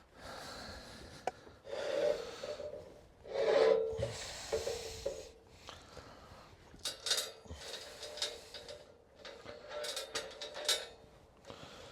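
Metal scraping and rubbing with irregular clinks and short ringing tones as steel sawmill track rails and their bolts are handled and fitted together.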